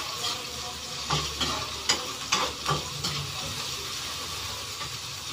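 Ginger, garlic and onion sizzling as they sauté in oil in a kawali (wok), with a spatula scraping and clattering against the pan several times in the first three seconds, then a steady sizzle as they brown.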